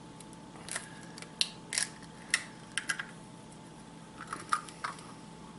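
Muscovy duck egg being pried open by hand: a scatter of small cracks and crackles as the shell and its tough inner membrane break apart, in two clusters about a second and about four and a half seconds in.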